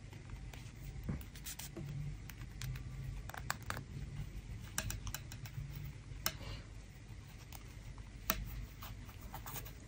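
Knitting needles clicking and tapping lightly against each other as they are handled and brought together, in faint, irregular clicks.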